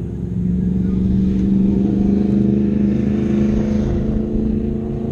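An engine running with a steady pitched hum. It swells louder about half a second in, holds, and eases off near the end.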